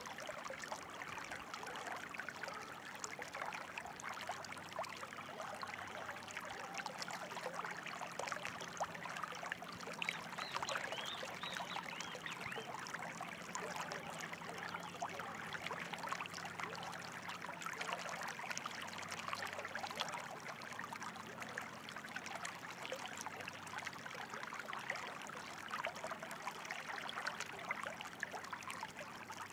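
Flowing water babbling and trickling steadily, like a small stream running over stones.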